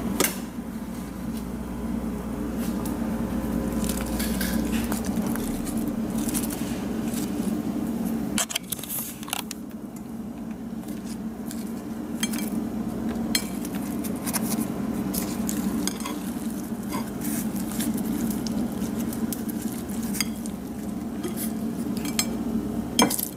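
Plate and kitchen utensils handled while lettuce leaves are laid onto a pita, giving scattered light clicks and clinks over a steady low hum.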